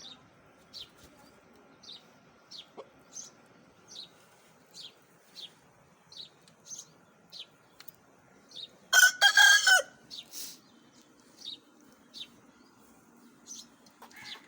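A rooster crows once, loud and brief, about nine seconds in. Throughout, a small bird gives short, high chirps roughly every half second to a second.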